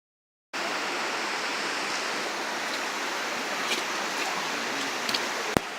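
Rushing water of a forest stream or waterfall, a steady, even rush that cuts in suddenly about half a second in. A single sharp click sounds near the end.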